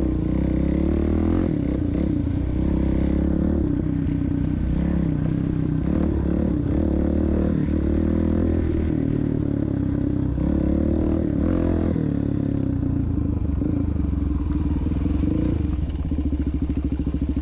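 Suzuki DR-Z400SM supermoto's single-cylinder four-stroke engine running steadily while riding a dirt trail, its pitch rising and falling with the throttle.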